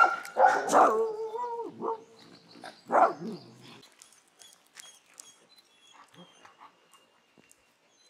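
A dog barking, several loud barks at the start running into a drawn-out wavering whine, then one more bark at about three seconds; after that only faint scattered sounds.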